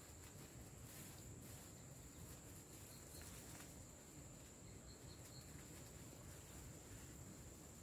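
Near silence with a faint, steady high-pitched insect drone, and a few soft rustles of leaves and plastic bags.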